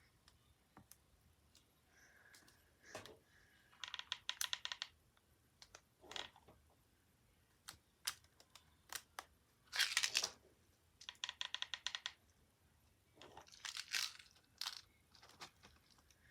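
Handling noises from working small wrapped candies onto a box: scattered small clicks, two quick runs of rapid clicks about a second long, and a few short crinkling rustles.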